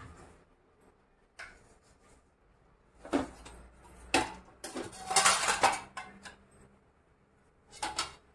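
Kitchen utensils and dishes clinking and clattering during cooking: a few separate knocks, then a longer, louder run of clatter about five seconds in, and one more knock near the end.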